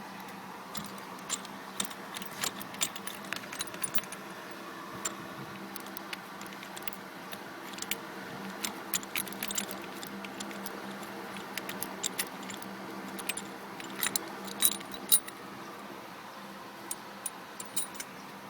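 Irregular small metallic clicks and clinks of bolts and a steering wheel puller being handled and threaded by hand, over a faint steady hum.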